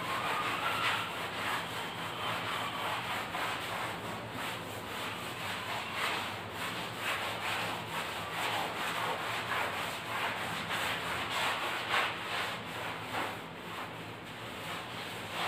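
Chalkboard being wiped clean with a cloth: repeated rubbing strokes across the board, about two a second.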